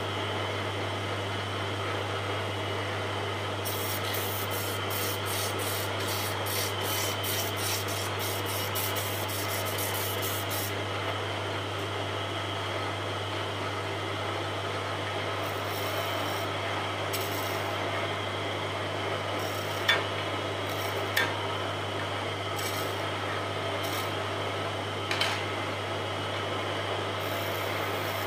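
Wood lathe motor running with a steady low hum while a hand-held turning tool cuts the spinning wooden spindle, a continuous scraping hiss. Three sharp clicks come in the latter half.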